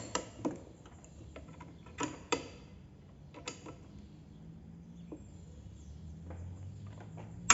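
Light metal clicks and knocks from a drill and workshop tools being handled while a thin pilot bit is set up for drilling out rivets, with a faint low hum in the second half and a sharp knock at the very end.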